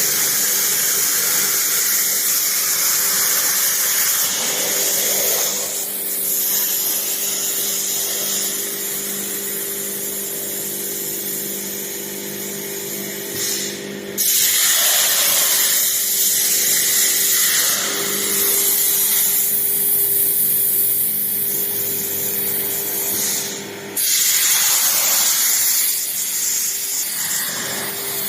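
CNC plasma cutter cutting steel flat bar: a loud, steady hiss of the arc and air jet over a constant hum. It breaks off briefly about halfway through and again near the end, as the torch stops and fires again for the next cut.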